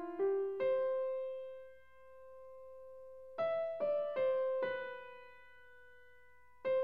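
Background music: a slow, gentle piano melody of single notes in short runs: a couple of notes at the start, four in a row about halfway through, and one more near the end, each note dying away.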